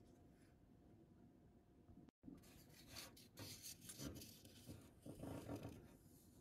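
Faint, irregular rubbing and scraping of a spreader card being worked over thermal paste on a CPU's metal lid, after a brief cut-out in the sound about two seconds in.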